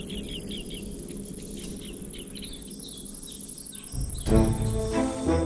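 Bush-cricket chirping in quick runs of short, high chirps that grow sparser, over a low rumble. About four seconds in, loud orchestral music with brass cuts in.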